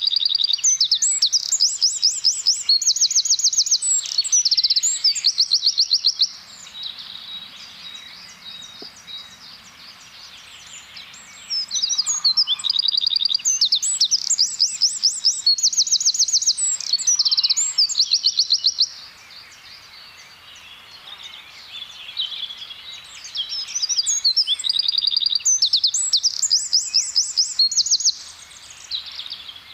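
Eurasian wren singing: three long, loud bouts of rapid high notes and fast trills, each lasting about five to seven seconds. Fainter bird calls carry on in the gaps between bouts.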